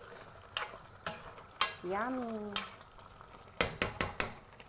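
Spoon stirring palak paneer gravy in a cooking pot, knocking against the pot in sharp clinks, with a quick run of four knocks near the end.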